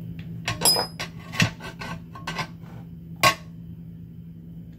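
Small metal parts clicking and clinking as a bolt and its sleeve are handled and fitted into a UFP A-60 trailer brake actuator: about half a dozen sharp taps, one with a brief metallic ring about half a second in, the loudest a little over three seconds in. A steady low hum runs underneath.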